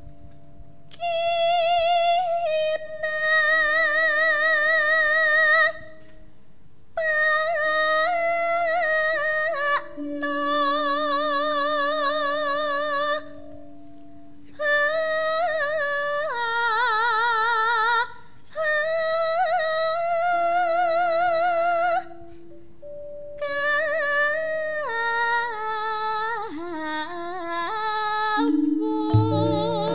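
Javanese gamelan music: a solo female singer (sindhen) sings long, held phrases with a wide vibrato, separated by short pauses, over soft sustained instrument tones. Near the end the ensemble comes in louder.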